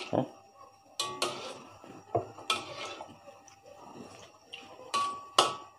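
Metal spatula scraping and knocking against a steel wok as chicken pieces are stirred in water, a few separate strokes. The last strokes leave a brief metallic ring.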